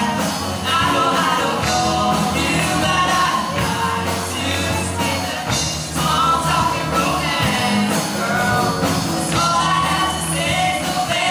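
Rock band playing live: a singer over electric guitars and a drum kit.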